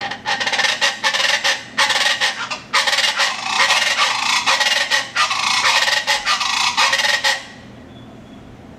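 Chachalacas calling loudly, a harsh grating call repeated in runs with short breaks between them, which cuts off suddenly about seven and a half seconds in.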